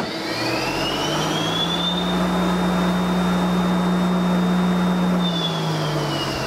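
1986 Mazak QT10n CNC lathe running under cut with coolant spraying. Its spindle drive whines up in pitch over about two seconds, holds steady, then winds down near the end.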